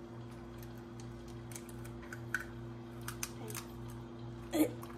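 Light scattered clicks and taps of eggshell and fingers against a stainless steel mixing bowl as an egg is broken into cookie dough, over a steady low hum.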